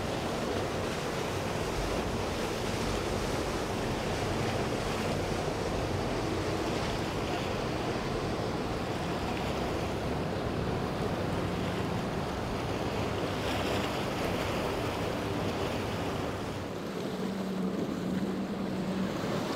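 Motor yacht cruising through the inlet: steady wash of water and waves off the hull with the low hum of its engines, and wind buffeting the microphone. Near the end the sound dips briefly and a steadier engine drone comes in.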